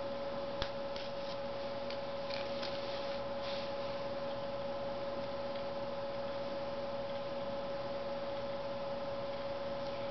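A steady electrical hum with one sharp click about half a second in and faint handling rustles over the next few seconds.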